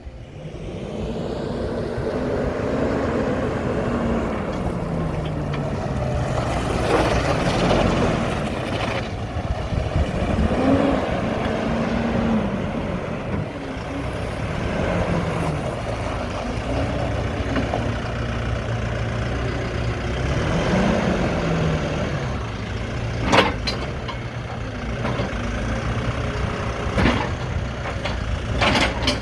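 Lonking 83C backhoe loader's 3.6-litre Perkins four-cylinder diesel running, its engine speed rising and falling several times. A few sharp knocks come near the end.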